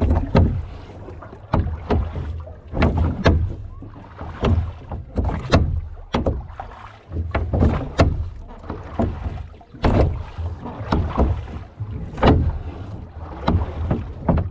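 Rowboat being rowed: wooden oars knocking and clicking in their metal oarlocks, many sharp knocks with each stroke, over a strong low rumble.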